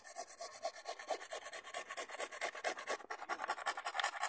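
A small hand file scraping the hard plastic of a car air filter box in quick, even back-and-forth strokes, with one short break about three seconds in.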